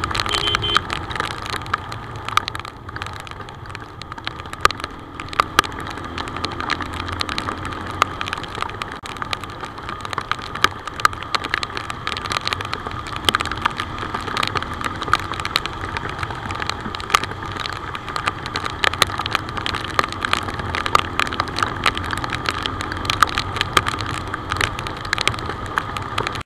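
Benelli TNT25 motorcycle running steadily at highway speed in heavy rain. Raindrops strike the camera as many sharp ticks over the steady rush of the ride and the engine's low hum.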